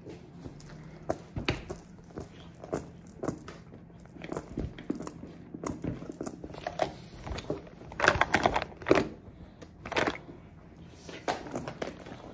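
Close-up rustling and crinkling of a fabric dust bag and a canvas tote bag being handled and set down beside the phone, with scattered light knocks. The loudest rustles come about eight seconds in and again about ten seconds in.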